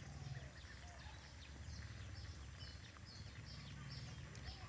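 Quiet rural outdoor ambience: a steady low rumble, with a high chirping call repeating about twice a second from about a second and a half in.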